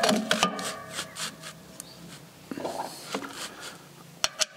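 A clutch pressure plate being shifted by hand against the flywheel: scraping and rubbing with light metallic clicks, then a few sharp clicks near the end.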